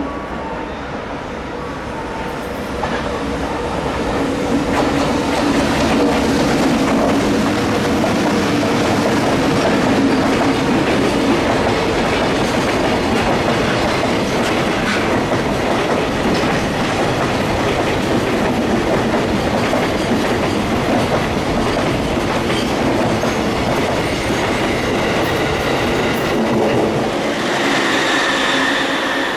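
A train running past along the platform, its wheels clattering over the rail joints, growing louder a few seconds in. Near the end, a high squeal of wheels joins it.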